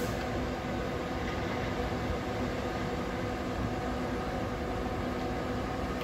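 Neoplan Tourliner coach's diesel engine running steadily, a constant hum with no change in pitch.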